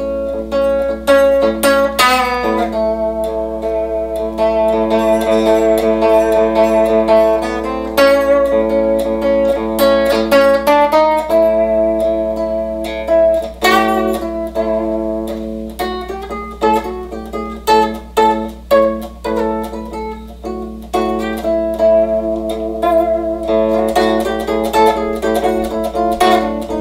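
Telecaster-style electric guitar through a combo amp, playing a single-note blues line in A and lingering on the chord tones (A, C sharp, E, with F sharp and B) between quicker picked runs.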